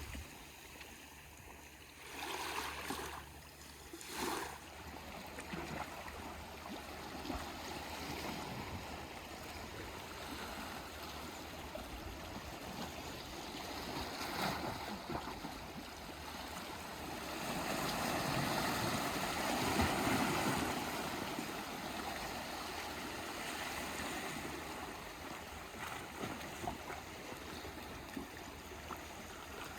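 Calm Aegean Sea waves washing and lapping, with short surges about two and four seconds in and a longer, louder swell about two-thirds of the way through.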